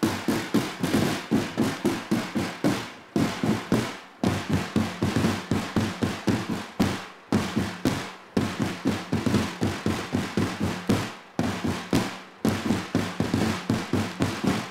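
Marching drums played with sticks by a small drum line: a fast drum cadence of quick strokes and rolls in short phrases, broken by brief pauses, stopping near the end.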